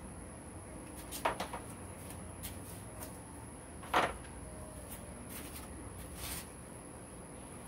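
Clicks and clunks from a homemade kayak trolling-motor lift as the electric trolling motor is pivoted up from tilted to upright. There are a couple of clicks about a second in, a louder clunk about four seconds in as the motor settles vertical, then a few faint ticks.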